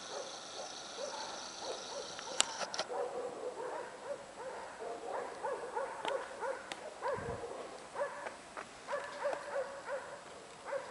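Airedale terrier screaming in rapid, repeated high-pitched cries and whines, several a second, the distress call it makes when another dog goes out for a walk ahead of it.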